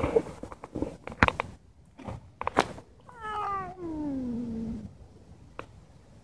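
Stray cat meowing once about three seconds in, one long call that falls in pitch. A few short knocks come before it, with one more near the end.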